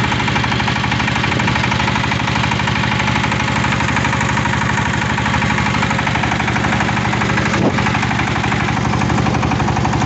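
Tobata single-cylinder diesel micro tractor engine running steadily with an even pulse. A single sharp click comes about three quarters of the way through.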